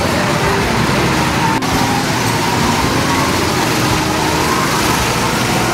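Gas-powered go-kart engines running steadily as karts circle the track, a continuous engine drone.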